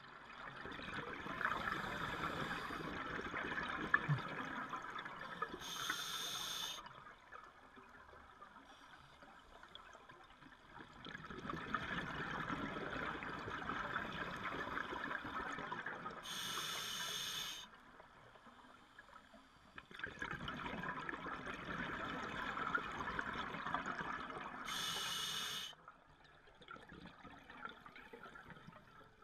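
Scuba diver's breathing through a regulator, heard underwater: three long stretches of gurgling exhaust bubbles, each ending in a short high hiss, with quieter pauses between breaths.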